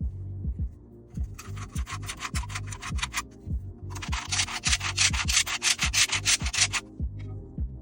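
Rapid sanding strokes on the cut end of a watercooling hard tube, in two runs of about two and three seconds. A steady low thudding beat of background music runs underneath.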